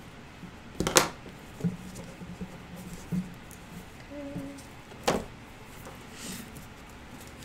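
Hands working small snips and a tape-covered wire doll armature on a table: two sharp clicks, one about a second in and one about five seconds in.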